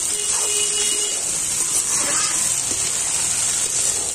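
Flat bean (semi) and potato pieces sizzling with a steady hiss as they brown in hot mustard oil in an iron kadhai, turned now and then with a metal spatula.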